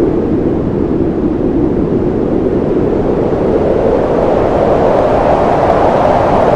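Strong wind blowing steadily, a loud rushing sound whose pitch drifts slowly, rising a little in the second half.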